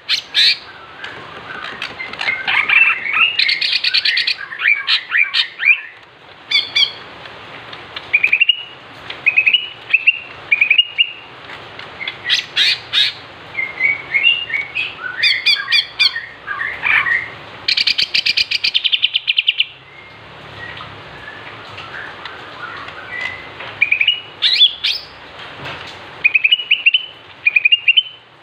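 Male green leafbird (cucak ijo) singing in bursts of rising chirps and quick whistled phrases, broken by a couple of dense, buzzy rattling trills, with short pauses between phrases. It is the excited song kept as a lure to set other cucak ijo singing.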